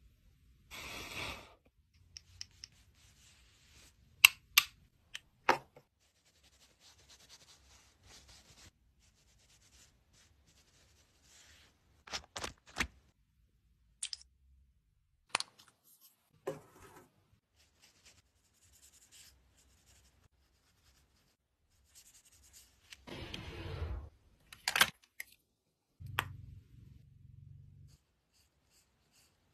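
Makeup containers and tools being handled on a tabletop: scattered sharp clicks and taps of plastic lids and compacts, with short stretches of rubbing and scraping between quiet gaps.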